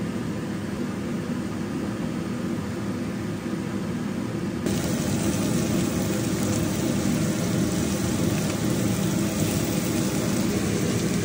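Food sizzling in a hot frying pan: chicken pieces going into the oil, then Brussels sprouts and onions sautéing under a wooden spoon. A steady hiss that gets louder and brighter about five seconds in.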